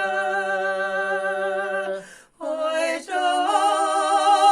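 Two women singing a Ukrainian folk song a cappella in two voices: a long held note ends about two seconds in, a short breath, then they start the next line on a drawn-out "Oi".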